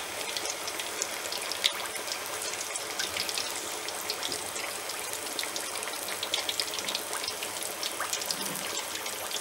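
Whole marinated chicken deep-frying in a kadai of hot oil: a steady sizzle dotted with many small crackles and pops.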